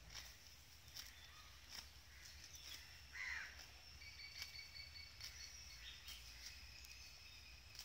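Faint crisp ripping of grass being torn off by a grazing cow, roughly once a second. A bird calls once about three seconds in, with faint steady high insect or bird tones behind.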